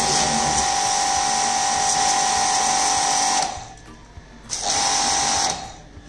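Starq W3 1800W electric pressure washer running, a steady motor whine with hiss. It cuts off about three and a half seconds in, runs again for about a second, and cuts off again near the end.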